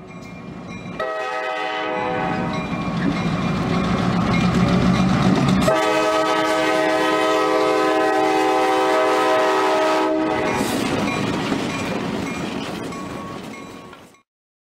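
Locomotive air horn sounding a chord in two long blasts, the first over a low rumble, with a sudden change between them about halfway through; the sound then fades out near the end.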